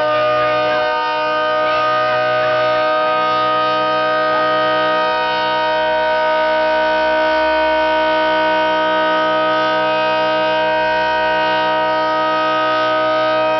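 Federal Signal 3T22 three-tone outdoor warning siren sounding at full speed: a loud, steady chord of several tones that holds its pitch without rising or falling.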